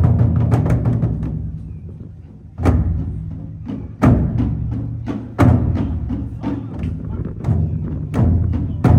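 Japanese nagado-daiko taiko drums being struck. A fast run of strokes rings and fades away, then single heavy strokes come about every second and a half, and quicker strokes return near the end.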